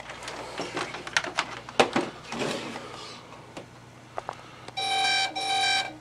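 A few scattered clicks and knocks, then two identical electronic beeps, each about half a second long, back to back near the end, from a beige Power Mac G3 booting after a motherboard swap.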